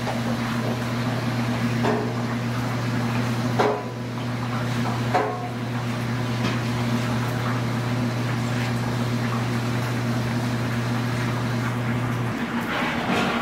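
A knife slicing through a cooked ribeye steak on a cutting board, with a few short knocks of the blade against the board. Under it a steady low machine hum runs and cuts off near the end.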